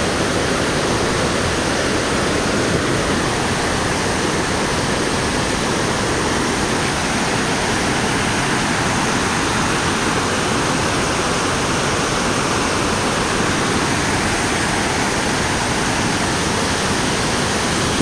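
Waterfall and its stream rushing over boulders, a loud, steady, unbroken roar of water.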